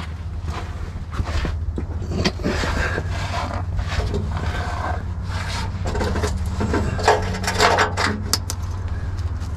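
Gloved hand working a large washer and bolt onto a car's thin sheet-metal underbody heat shield: irregular scraping and rubbing against the shield, with small metallic clicks, over a steady low hum.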